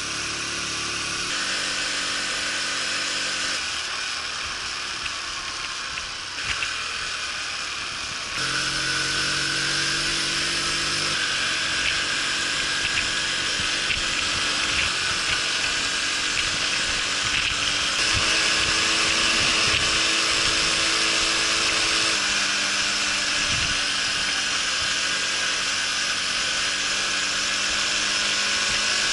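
Honda Super Cub's small single-cylinder four-stroke engine running under way, with wind and road noise. Its pitch holds steady and then jumps to a new level several times, as with gear changes, and it gets louder about eight seconds in.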